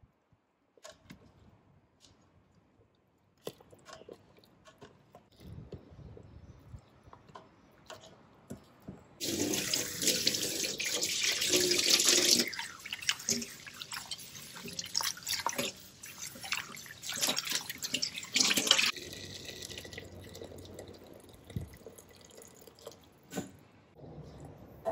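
Tap water running into a stainless steel bowl of blanched pork ribs as they are rinsed in a sink. It starts about nine seconds in and runs for about ten seconds, with splashing and knocks as the ribs are moved in the bowl.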